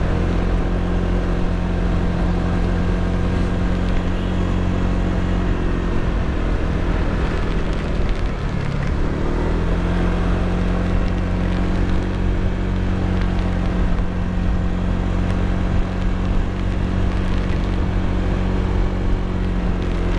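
Motorcycle engine running steadily under way, its note dipping briefly about eight seconds in and then climbing back, over a steady rush of wind and road noise.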